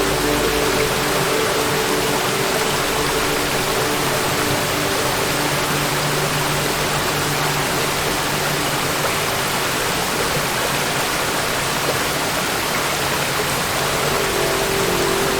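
Waterfall: water falling and splashing in a steady, unbroken rush, with faint steady low tones underneath.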